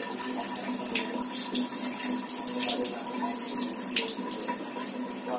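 Water running and splashing steadily over wet hair as it is washed and rinsed by hand.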